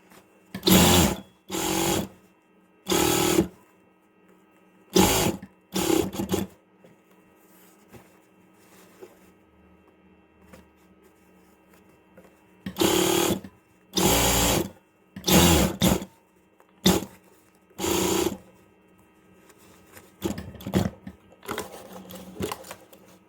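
Sewing machine stitching a replacement zipper onto a jacket in short runs, starting and stopping about a dozen times; each run lasts roughly half a second to a second.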